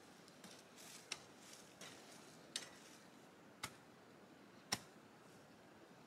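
A handful of sharp, irregular clicks or knocks, about five, the loudest near the end, with light rustling in between.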